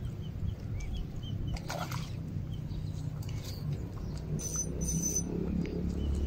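Small birds chirping with short high calls, and two brief shrill whistles about four and a half seconds in, over a low steady rumble.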